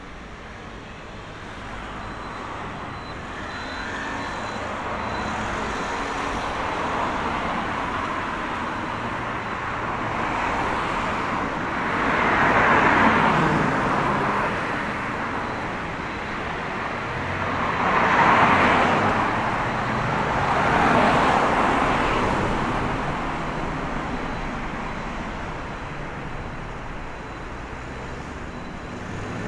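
Street traffic: a steady wash of tyre and engine noise, with three cars passing close one after another in the middle stretch.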